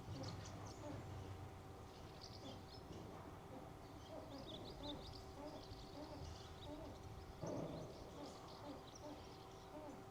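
Faint, scattered chirping of small birds, with a steady low hum underneath. There is one brief rustle or knock about three quarters of the way through.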